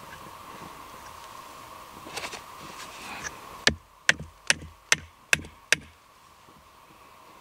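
Six sharp knocks in an even rhythm, about two and a half a second, starting about halfway in, with light rustling before them.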